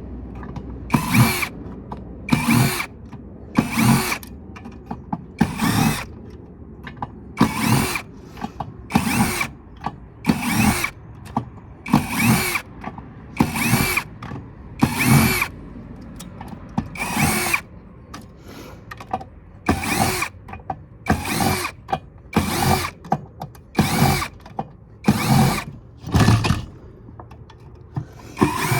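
Cordless power drill/driver spinning screws out in short trigger bursts, each whirr rising in pitch as the motor spins up, about one every second and a half.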